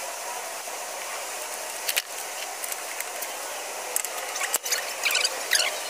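Steel lug nuts being threaded onto wheel studs by hand, with sharp metal clicks about two seconds in and again around four seconds in, then a run of quick clicks near the end as a wrench ratchets a nut down.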